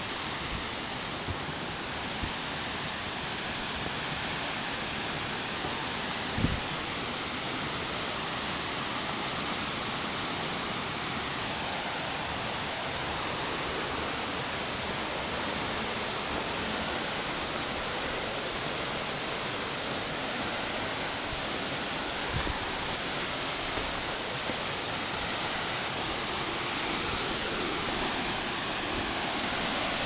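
Tall waterfall's steady rush of falling water. There is a brief low thump about six seconds in and another near the twenty-two-second mark.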